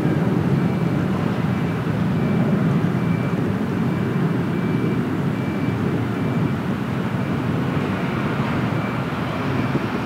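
Steady low rumble of distant engine noise, with a faint high tone repeating in short pulses through most of it.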